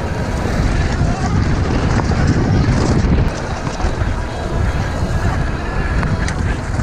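Wind buffeting the microphone, mixed with the rumble of a mountain e-bike's tyres running fast over a dirt forest trail, with a few small clicks and rattles.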